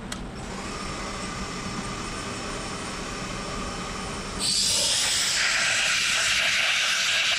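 A CNC milling machine running with a steady hum and faint whine. About four and a half seconds in, a compressed-air blow gun starts a loud, steady hiss, blasting aluminum chips off the vise.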